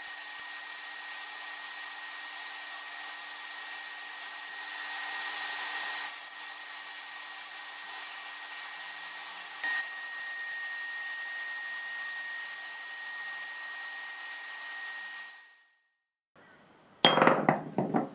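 Sandblasting gun blasting inside a blast cabinet, a steady hiss of compressed air and abrasive on the steel parts of an adjustable spanner, with a faint high whistle; it fades out after about fifteen seconds. Near the end come a few loud, sharp knocks as the blasted parts are handled on a wooden surface.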